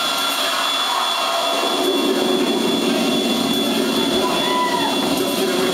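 Steady droning electronic music over a club sound system, with no clear beat, and crowd voices underneath. A brief pitched tone sounds about four and a half seconds in.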